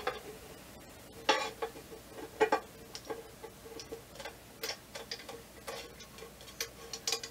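Irregular small clicks and taps, about one or two a second, as a tripod leveling base is screwed by hand into the threaded hole of a flat mounting plate, with a faint steady hum underneath.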